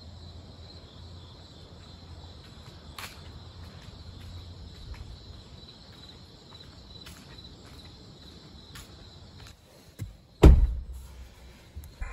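Crickets chirring steadily over a low hum, with a few faint clicks. About ten seconds in, a car door shuts with a heavy thump.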